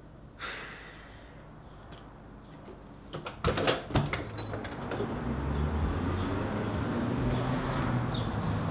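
A door being opened and shut offscreen: a few sharp clicks and knocks in quick succession, then a steady low rumble of background noise.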